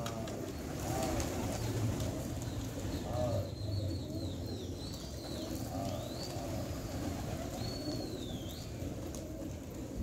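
Domestic pigeons cooing, short low coos every second or two, over a steady low background hum.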